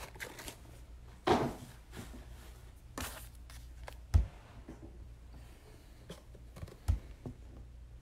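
Trading cards being handled on a table: a few brief rustling swishes, and two soft low thumps about four and seven seconds in.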